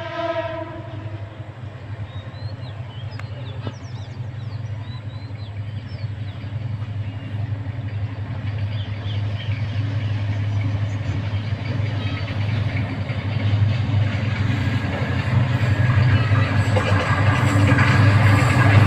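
A diesel train's engine drone grows steadily louder as the train approaches. A few faint bird chirps come about three to four seconds in.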